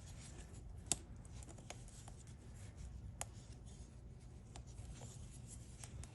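Faint rubbing and scraping with a few light metal clicks, two sharper ones about a second and three seconds in: small vise grips working a broken screw out of a tire.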